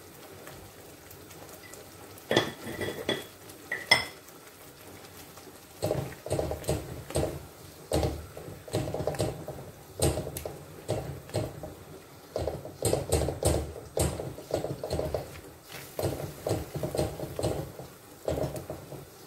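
A silicone-headed spatula stirring and scraping thick rendang spice paste around a wok, in steady strokes about twice a second from about six seconds in. Before that come two sharp knocks with a short metallic ring, the louder one about four seconds in.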